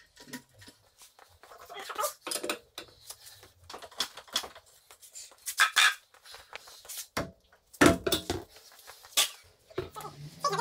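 Irregular metallic clinks, scrapes and knocks of tools and wheel hardware during a wheel change on a car, with a couple of heavy thumps about eight seconds in.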